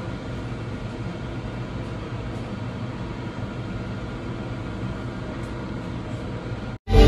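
Steady indoor background hum and hiss of running machinery, with faint steady tones in it. It cuts off abruptly near the end.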